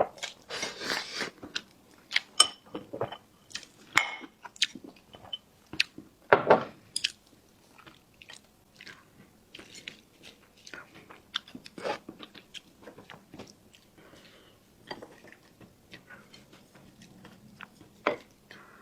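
Close-miked eating sounds: a person chewing and biting food with irregular wet smacks and crunchy clicks, busiest in the first half, with one louder bite about six seconds in.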